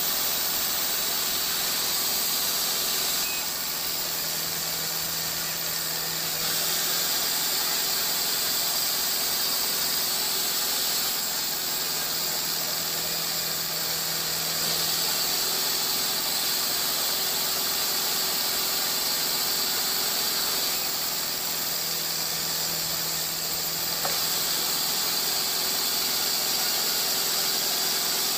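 Sawmill log-handling machinery running steadily: a loud, high hiss with a squeal in it and a low hum underneath. It changes a little in level every several seconds.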